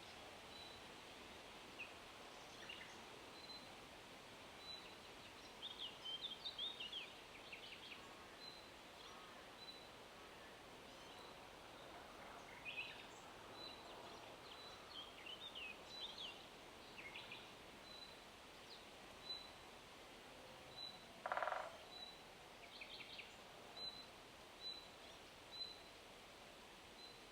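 Small woodland birds singing over a faint steady hiss of wind in leaves: many short chirps and quick glides, with a thin high note repeated about once a second. About two-thirds of the way through comes one louder, coarser sound lasting about half a second.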